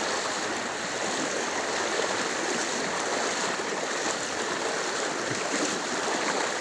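Fast-flowing muddy floodwater rushing over stones and across a flooded road, a steady, even rush of running water.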